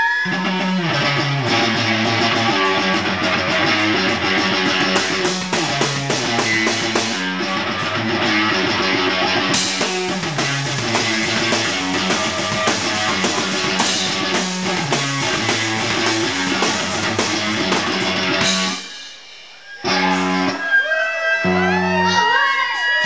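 Live electric guitar and drum kit playing a loud repeating rock riff with steady drum hits. About 19 seconds in the music drops out briefly and comes back as two short stop-start hits, then held guitar notes that bend in pitch.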